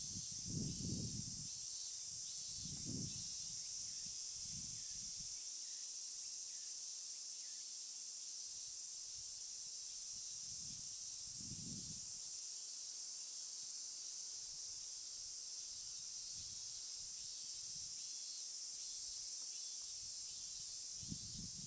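A steady, high-pitched chorus of cicadas. A few soft low thumps come early on and again about halfway through.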